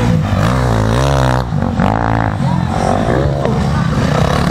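Motocross bike engine revving through a corner, its pitch dipping and then climbing again about a second in.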